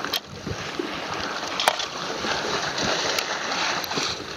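Sea water sloshing and splashing against shore rocks in a steady wash, with a few sharp clicks.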